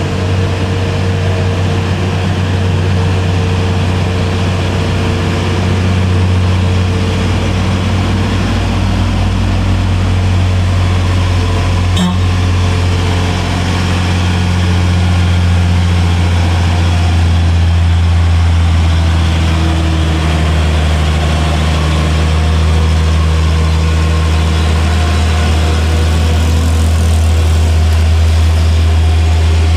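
Hino 500 truck's diesel engine running under load as the loaded truck climbs uphill, a steady low drone that grows a little louder as it draws near. A single sharp click about halfway through.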